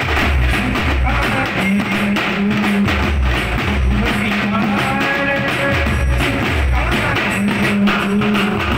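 Street band music: heavy drum beats in a steady rhythm under a melody.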